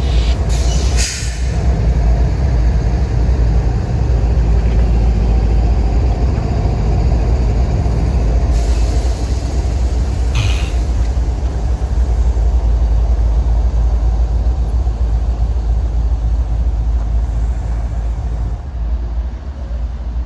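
A train's cars rolling past with a steady, heavy rumble. Brief hissing bursts come about a second in and again about halfway through.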